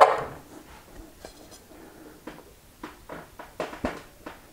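A socket wrench on the axle nut of an electric unicycle's hub motor: a sharp metallic clack at the start, then a few scattered faint clicks and ticks as the wrench is worked.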